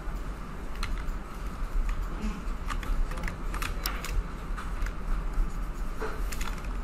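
Irregular clicks of computer keyboard keys and mouse buttons, a dozen or so scattered taps, some in quick pairs, over a steady low hum.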